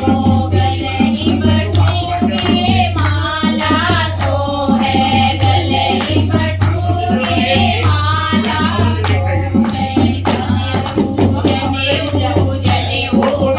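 Kumauni badhai geet, a folk song sung over a steady hand-drum beat.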